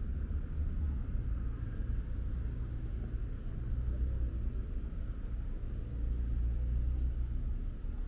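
Low, steady rumble of car traffic on a city street.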